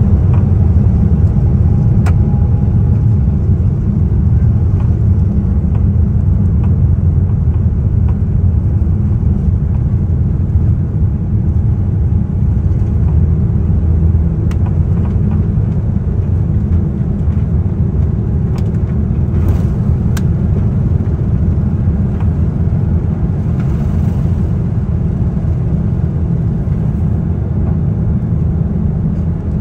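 Boeing 787-9's Rolls-Royce Trent 1000 turbofan engines at takeoff thrust, heard inside the cabin as a loud, steady rumble of engines and runway through the takeoff roll. There are a few light clicks, and the rumble eases slightly near the end as the aircraft lifts off.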